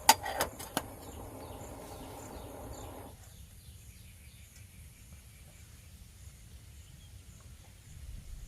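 A few sharp knocks in the first second and a low steady hum that cuts off suddenly about three seconds in, then quiet outdoor ambience with a faint high chirp repeating about twice a second.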